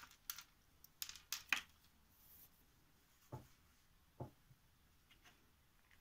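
Small pieces of seashell clicking as they are tipped from a hand onto a wooden tabletop: a quick scatter of light clicks in the first second and a half, then two soft knocks about a second apart.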